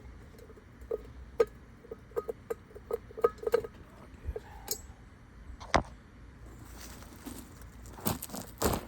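Light metallic clinks and ticks of steel lug nuts being handled and threaded by hand onto a trailer wheel's studs, a quick run of them in the first few seconds, then a few louder knocks near the end.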